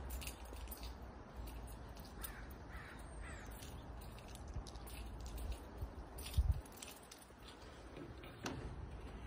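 A bird calling twice in quick succession about two seconds in, over a low steady rumble of wind and camera handling. There are a few light clicks and a dull bump a little past the middle.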